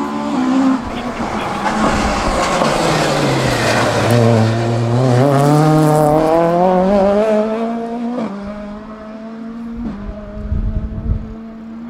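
A Mk1 Ford Escort RSR race car's engine passes close by. Its note drops as the car comes off the throttle, then climbs as it accelerates away. A sudden change in the note about eight seconds in is likely a gear change, and the car fades as it goes down the straight.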